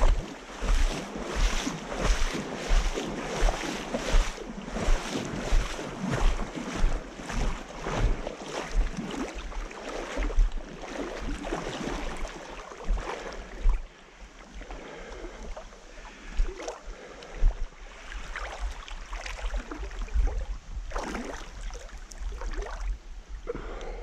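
Feet wading through a shallow river, water splashing with each step at about three steps every two seconds. About halfway through the splashing becomes quieter and more irregular.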